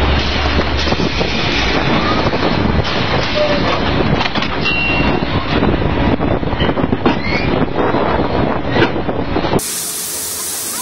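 Drilling rig floor machinery running loudly, with many metallic clanks and knocks as drill pipe is worked at the rotary table. Near the end it cuts abruptly to a steady hiss.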